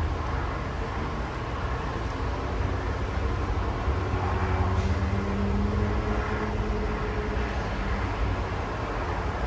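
Steady low rumble of distant highway traffic. A passing vehicle's hum comes up about four seconds in and fades by about eight seconds.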